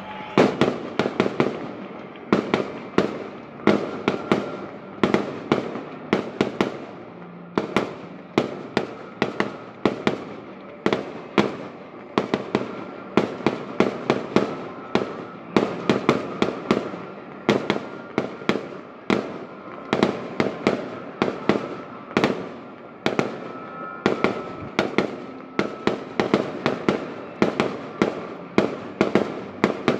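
Aerial fireworks exploding in a rapid, unbroken barrage, several sharp bangs a second with echoing tails, breaking out suddenly at the start.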